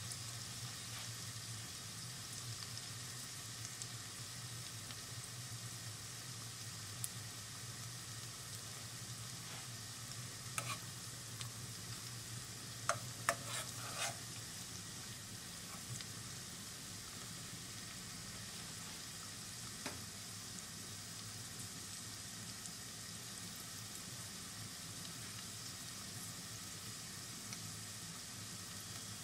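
Chopped onions and garlic sizzling steadily as they sauté in a pan, softening over the heat. A few sharp knocks of the stirring spoon against the pan come around the middle, with one more a little later.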